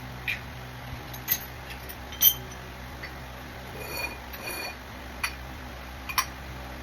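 Hand tools and small hard parts being handled and set down during oil-change cleanup: a run of sharp clinks and knocks, loudest a little over two seconds in, with two brief squeaks around four seconds, over a steady low hum.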